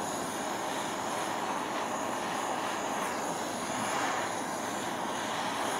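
Gas torch flame burning steadily as it heats a copper backplate, bringing the copper up to temperature for hard solder to flow.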